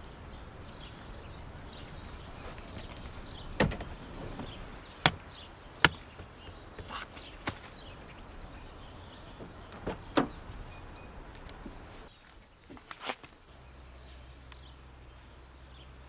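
A car's boot and door being handled: about half a dozen sharp knocks and clunks, a second or more apart, over a steady outdoor background hiss. About 13 s in the background changes and a low hum comes in.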